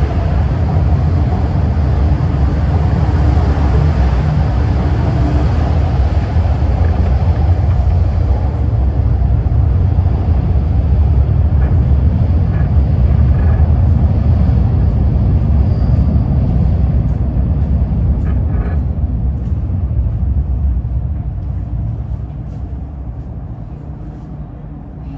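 MTR Kwun Tong line Q-train electric multiple unit running on as it leaves the platform empty: a steady low rumble with light clicking through the middle, fading away over the last several seconds.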